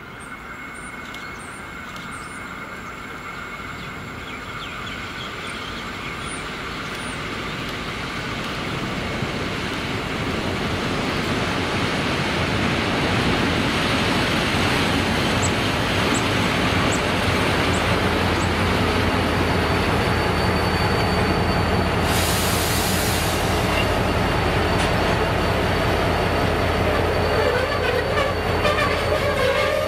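V/Line A Class diesel-electric locomotive A66, a rebuilt bulldog-nose EMD, approaching and drawing alongside with its train: its engine rumble and wheel noise build up over the first dozen seconds and then hold steady. About two-thirds of the way in there is a brief loud hiss, and a thin high squeal of wheels or brakes joins near the end as the train slows.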